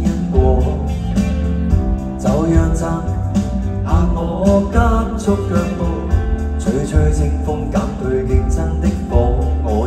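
Live band playing a Cantopop song, with a steady drum and bass beat, guitar, and a voice singing over it.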